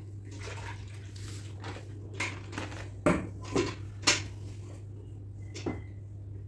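Hand-laundry handling noises: a plastic detergent packet crinkling and clothes being moved, with a few sharp knocks and clinks against a steel tub, loudest a little after the middle.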